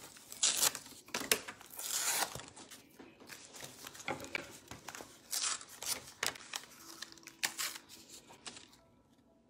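Scissors cutting cardboard in a string of irregular snips, with rustling as the cardboard pieces are handled; it dies down near the end.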